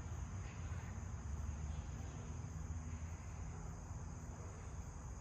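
Faint, steady high-pitched insect chirring, typical of crickets, over a low background rumble.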